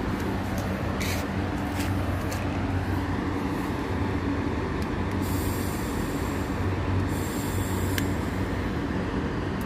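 Steady low mechanical hum. Two short high hisses come about five and seven seconds in, and a sharp click follows at about eight seconds.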